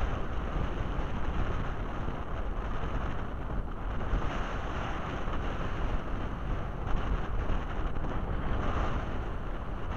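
Strong wind buffeting the microphone in a steady low rumble, over the wash of choppy shallow bay water lapping close by.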